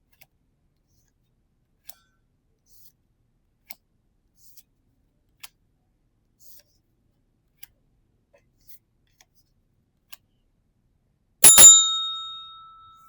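Faint scattered clicks of trading cards being handled, then a single bright bell ding about eleven seconds in that rings out and fades over a second and a half, marking a pulled EX card.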